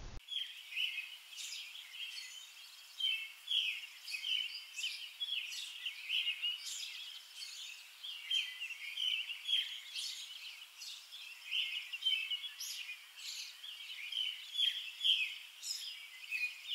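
Songbirds chirping: a steady run of short, high chirps in quick succession.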